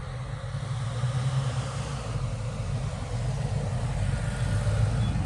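Toyota Tacoma pickup driving through deep snow: the engine runs with a steady low hum under an even hiss.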